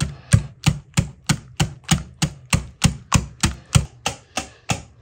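Wire hand whisk beating a creamy mixture in a glass bowl, clicking against the glass in an even rhythm of about three strokes a second.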